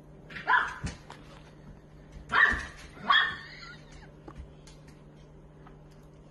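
A dog barks three short times: once about half a second in, then twice in quick succession about two and a half seconds in.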